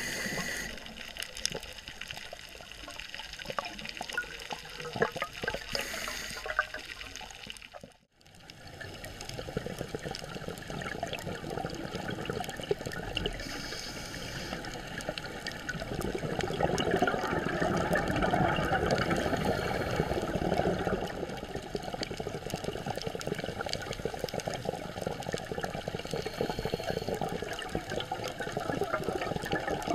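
Underwater sound of a scuba diver breathing: the hiss of the regulator and the gurgling rush of exhaled bubbles, loudest in a long bubble rush past the middle. The sound drops out for a moment about eight seconds in.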